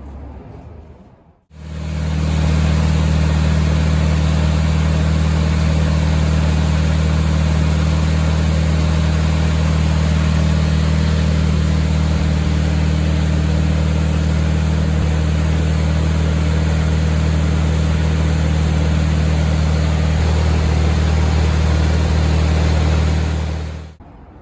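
A loud, steady machine drone, an engine or motor running at constant speed with no change in pitch. It swells in about a second and a half in and cuts off abruptly near the end.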